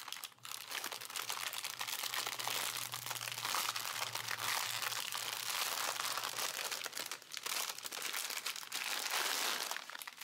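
Clear plastic packaging crinkling and rustling continuously as it is handled and pulled open and the strip of sealed bags of round diamond painting drills is taken out. The rustle stops just before the end.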